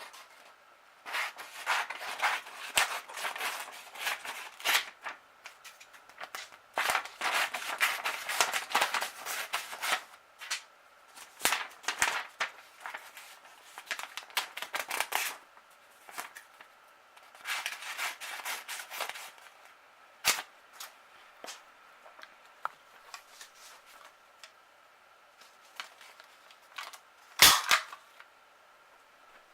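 Bursts of rapid, sharp clicking and crackling that come in clusters a second or several seconds long, then thin out to scattered clicks, with one louder sharp snap near the end.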